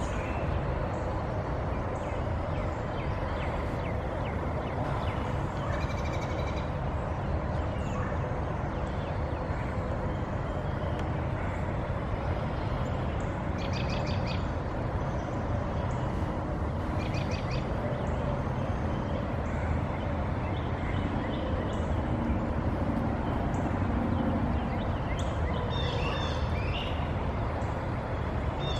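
Birds chirping and trilling in short bouts over a steady rumbling background noise.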